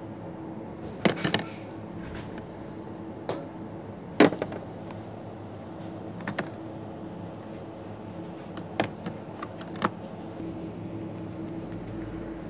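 Sharp knocks and clatters as a coffee tray is handled and knocked against a metal shelf rail, the loudest about a second in and about four seconds in, with a few lighter clicks later, over a steady background hum.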